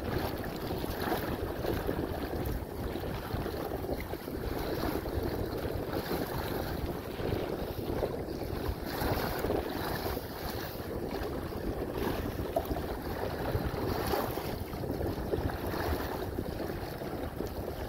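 Wind buffeting the microphone over the splash and slap of wind-driven chop against the bow of a Hobie Outback kayak under way. The noise is steady and gusty, with no clear motor tone.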